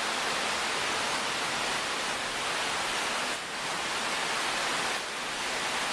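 Steady hiss of rain falling outdoors.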